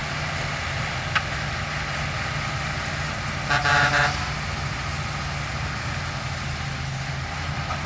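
Heavy diesel earthmoving machinery running steadily with a low engine hum. There is a sharp click about a second in, and a brief higher-pitched squeal or toot about three and a half seconds in.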